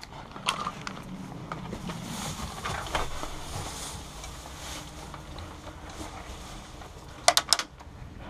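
Rustling of a person moving through tall grass, with a few scattered clicks. About seven seconds in comes a quick cluster of three or four sharp cracks, the loudest sound.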